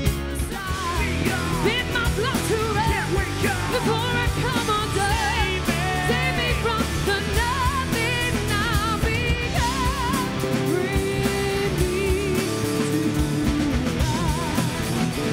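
Live rock-pop band playing a song: a woman singing lead, holding notes with vibrato, over electric guitar, acoustic guitar, bass and a drum kit.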